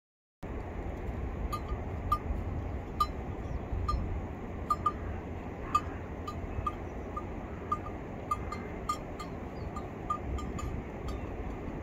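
Small livestock bells clinking irregularly, about one or two short clinks a second, as sheep graze, over steady low background noise.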